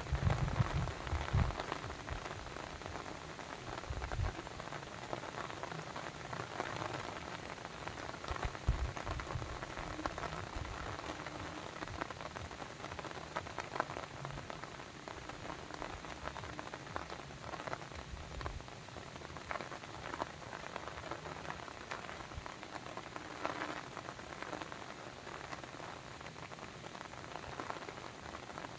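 Steady patter of water drops over a constant hiss, with a few low thuds, the loudest right at the start.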